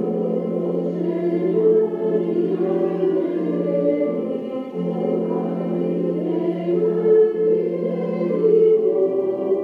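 A choir singing a hymn in slow, held notes over a steady low sustained note that shifts pitch about halfway through.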